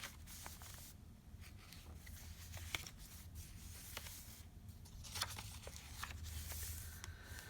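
Paper rustling with scattered light clicks and taps as the pages of a thick handmade paper journal are turned and its tucked cards, tags and paper-clipped pieces are handled.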